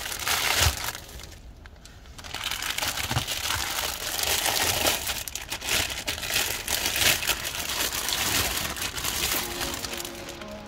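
Clear plastic packaging crinkling and rustling as it is handled and pulled around a doll, with a brief lull about a second in.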